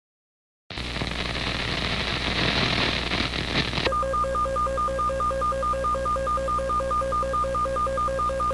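Emergency alert signal: a burst of harsh, static-like noise over a low hum, then from about four seconds in a steady, rapidly pulsing two-tone beep, the attention tone that introduces the next emergency broadcast.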